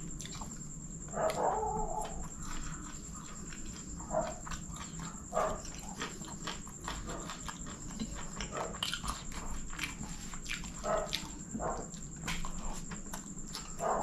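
Close-miked chewing and lip-smacking of a person eating kottu roti by hand, full of short wet mouth clicks. There is a brief hum about a second in, a few shorter ones along the way, and another near the end.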